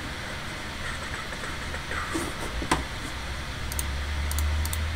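Clicks of a computer mouse and keyboard over a steady low hum: one sharper click a little past halfway, then a quick run of small clicks near the end.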